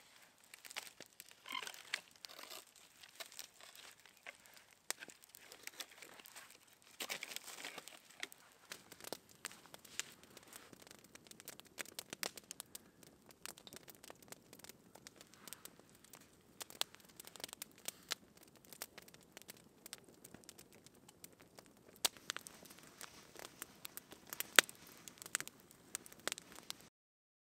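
Wood campfire crackling, with irregular sharp snaps and pops, some of them loud. It cuts off abruptly near the end.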